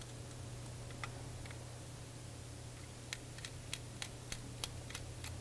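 Light ticks of a small screwdriver working the tiny screws and parts of a Canon Rebel DSLR body: a couple of ticks in the first second and a half, then a run of about eight quick ticks, roughly three a second, in the second half, over a steady low hum.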